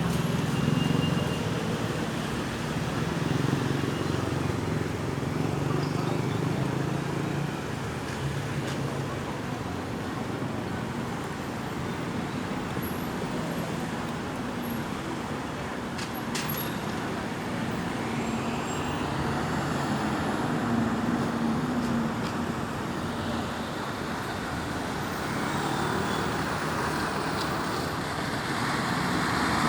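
Road traffic: engines and tyres of passing vehicles, with a few low engine tones.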